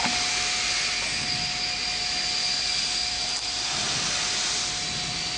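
DCZ70 digital flatbed cutting machine running: a steady hissing whir with a constant whine, unchanged throughout.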